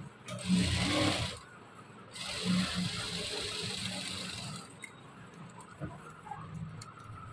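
Sewing machine stitching a seam in two runs, a short one of about a second and then a longer one of about two and a half seconds, sewing a double line of stitching along the garment's side seam.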